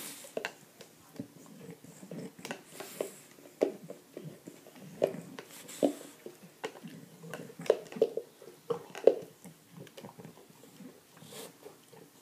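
Bulldog licking peanut butter out of a jar with its muzzle inside it: a quick, irregular run of wet licks and smacks, with a few snuffling breaths through the nose.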